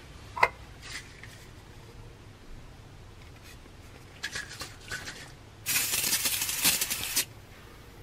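Aerosol can of foam cleaner spraying in one long hiss of about a second and a half near the end, after a few light clicks and taps.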